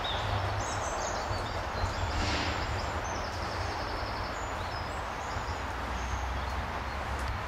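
Outdoor ambience: a steady hiss with an uneven low rumble, and faint birds chirping in the first few seconds.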